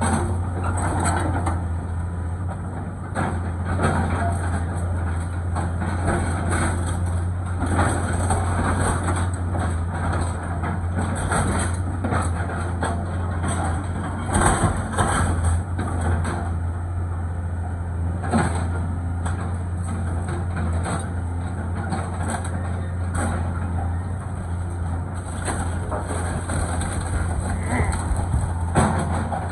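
Diesel engine of a tracked hydraulic excavator running steadily during demolition, with repeated cracks, knocks and crashes of wood splintering and debris falling as a house is torn down.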